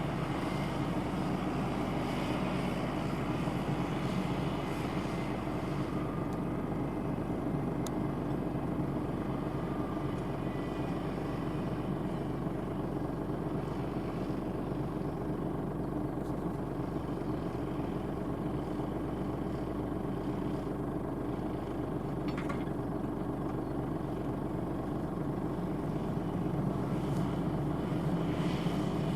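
Kubota M5111 tractor's four-cylinder diesel engine running steadily under load while pulling a four-furrow mounted plough through the soil.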